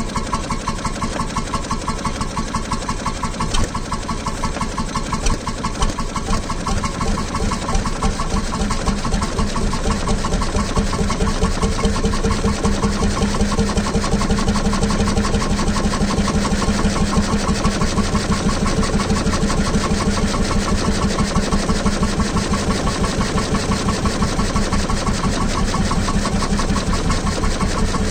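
1923 BMW 10 hp stationary farm engine running steadily with an even, rapid beat, growing a little louder after about ten seconds.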